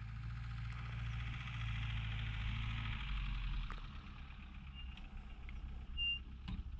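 A car engine running steadily, then fading about halfway through as the car drives off.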